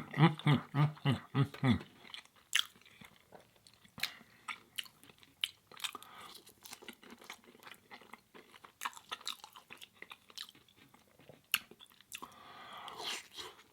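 Close-up mouth sounds of chewing and crunching a plant-based fried chicken sandwich, with scattered crisp crunches. A quick run of short voiced hums comes in the first two seconds, and a long breathy rush of air near the end.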